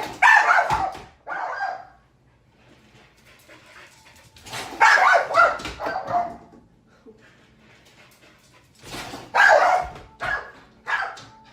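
A dog barking in three bouts of several barks each, a few seconds apart.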